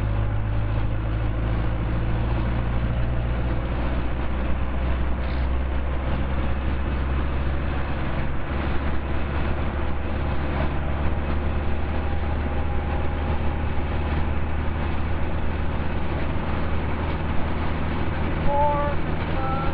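Model T Ford's four-cylinder engine with a reground cam, running steadily under load as the car speeds up on the freeway, heard from the driver's seat mixed with road and wind noise. Its low engine note shifts about eight seconds in.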